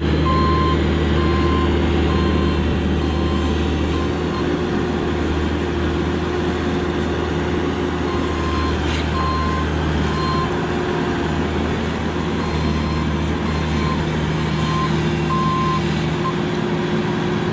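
Excavator diesel engine running steadily under load while its travel alarm beeps in runs of short, evenly spaced beeps, as the machine tracks its way out of a deep, tight dig hole.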